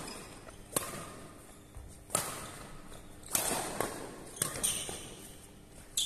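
Badminton rackets striking the shuttlecock during a doubles rally: about five sharp hits, roughly one every second and a quarter, each echoing in the big hall.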